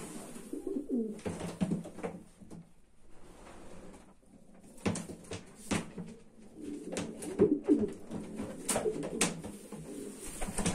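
Racing pigeons cooing, low rolling coos in bouts, with a few sharp clicks and knocks in between.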